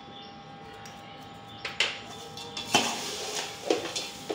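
A perforated metal ladle clattering and scraping against a large aluminium pot as dry roasted poha flakes and peanuts are tossed together. The clatter starts about two seconds in: several sharp knocks with a rustling scrape between them.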